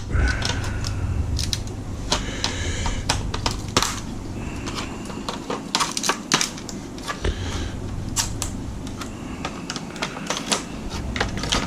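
Irregular clicks, knocks and short scrapes of plastic and a circuit board being handled and pried as the board is worked loose from an Atari game console's case.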